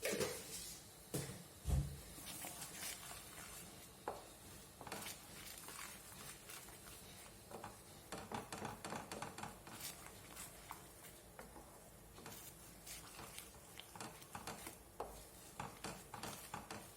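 Faint clinks and scrapes of a spoon stirring salt into masala gravy in a cooking pan, with a low knock a little under two seconds in.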